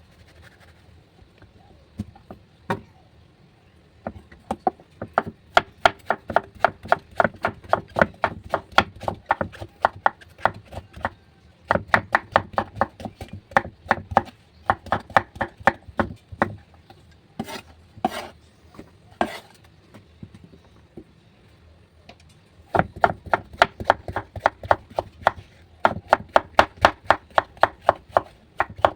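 Knife chopping vegetables on a cutting board in quick, even strokes, with a pause of a few seconds in the middle before the chopping starts again.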